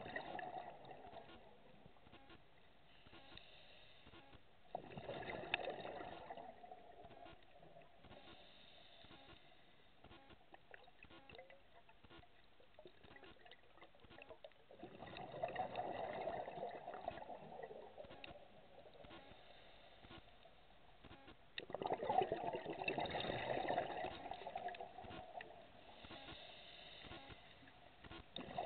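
Scuba diver breathing through a regulator underwater: bursts of bubbling exhaled air every five to ten seconds, each lasting two or three seconds, with a low hiss between breaths. The longest and loudest burst comes about two-thirds of the way through.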